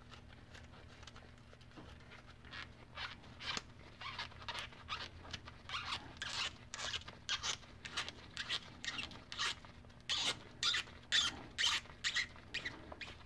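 A cotton swab wetted with alcohol being pulled back and forth through the threaded bore of a small micrometer compensator nut by gloved fingers: a run of short scratchy rubbing strokes, about two a second, starting about two seconds in.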